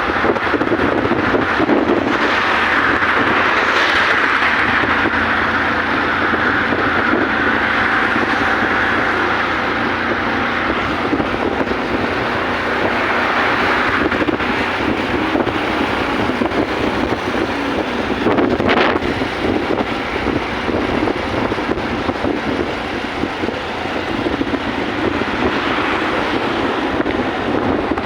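Steady, loud rushing noise with no clear pitch, swelling for a while and then easing.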